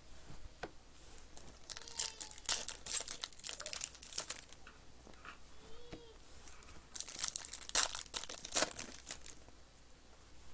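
Trading card pack wrappers being torn open and crinkled by hand, in irregular crackling spells, the louder one about seven seconds in.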